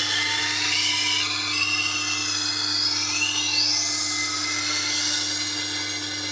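Tormek T8 wet sharpener grinding a kitchen knife's edge: steel scraping against the turning wheel over the machine's steady motor hum. The blade rings in whining tones that waver, rising and falling as the belly is drawn across the wheel.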